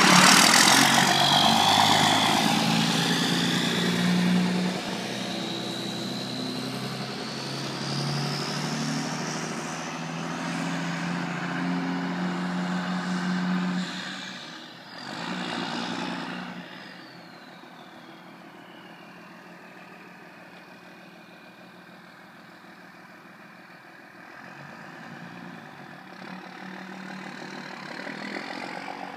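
Ford F-650 truck's engine running as it pulls away and drives off, loudest at first and fading after about seventeen seconds. A high whine climbs slowly over the first dozen seconds, then after about sixteen seconds falls away.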